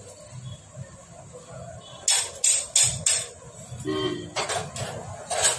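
Sharp metallic clinks and taps of tools and parts on a Hero Splendor Plus motorcycle engine's crankcase as it is assembled: four quick strikes about two seconds in, a brief ring, then another run of taps near the end.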